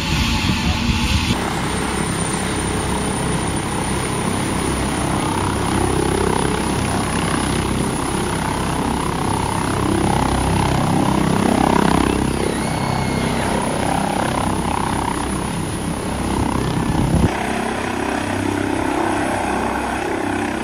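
Airbus H145 air ambulance helicopter running with its rotors turning, a steady high turbine whine over the rotor noise. Near the end it lifts off and climbs away.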